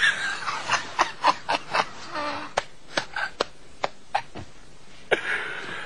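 Stifled laughter from men: short, breathy snickers in quick, irregular bursts, with a brief voiced chuckle or two.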